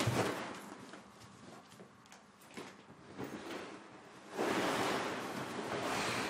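Beanbag rustling as its fabric and bead filling are pushed and shifted. It opens on the tail of a louder rustle, goes quiet with a few small knocks, then gives a steady hushing rustle of about two seconds near the end.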